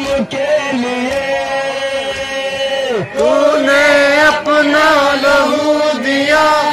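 Male chanting of a noha, a Shia mourning lament, with long held notes. The chant grows louder and more ornamented about three seconds in.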